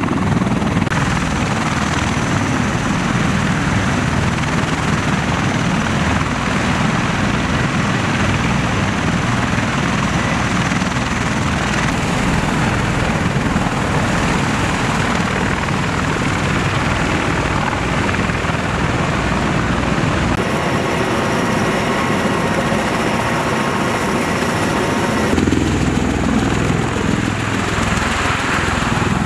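A group of MV-22B Osprey tiltrotors running on the runway with rotors turning, then lifting off: loud, steady rotor and engine noise whose sound changes abruptly a couple of times.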